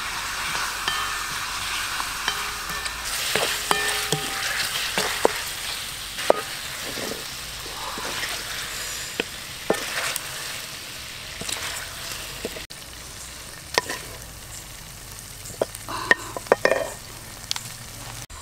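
Whole eggs frying in a spicy sauce in a wok, sizzling steadily, while a wooden spatula stirs them with repeated scrapes and knocks against the pan.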